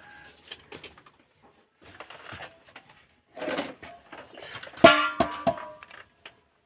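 Scattered knocks and clatter, with a loud ringing clang about five seconds in and a second, lighter one just after.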